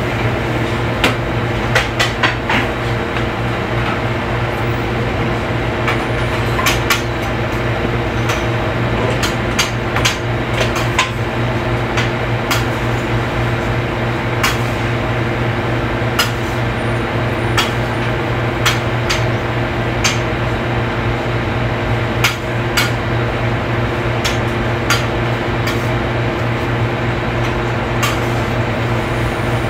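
Busy commercial kitchen: a steady mechanical hum under frequent, irregular clinks and scrapes of metal utensils and pans at a flat-top griddle.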